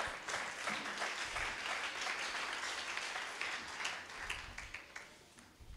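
Congregation applauding: many hands clapping together, dying away near the end.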